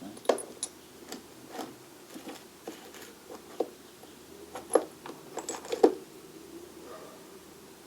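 Small metal tools clinking and knocking as they are picked up, rummaged and set down in a toolbox: a dozen or so irregular sharp clicks, the loudest just before 5 s and just before 6 s.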